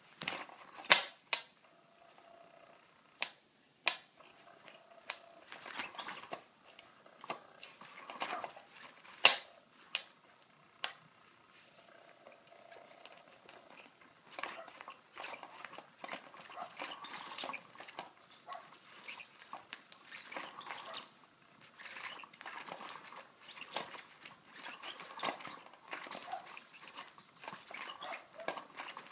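Cat's Meow electric cat toy being played with: sharp taps and scratches as a cat paws at the wand moving under its fabric cover, becoming busy, steady rustling from about halfway on. A faint hum from the toy's motor comes through in places.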